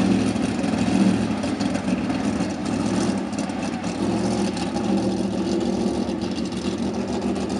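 Winged sprint car's V8 engine running steadily as the car laps a dirt oval, a steady drone that eases slightly after about two seconds.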